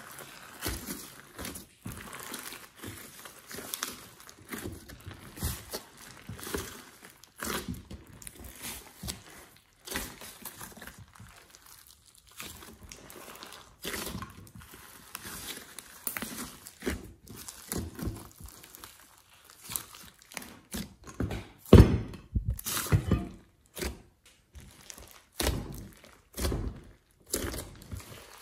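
Hands kneading and squeezing a large mass of clay-mixed slime: wet, sticky squishing broken by irregular crackling clicks and pops, the loudest pop about three-quarters of the way through.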